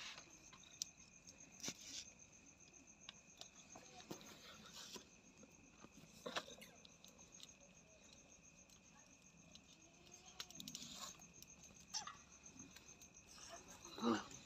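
Faint, steady high-pitched insect trill, with scattered soft clicks and rustles from hands on the cat's fur and clothing, and a louder rustle of the phone being moved near the end.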